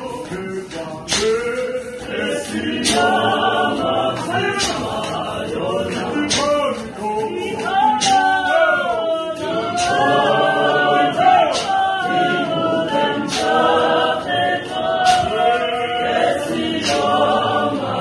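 A church congregation of men and women singing a hymn together a cappella, in a Zionist church style. Sharp percussive hits sound every second or so beneath the singing.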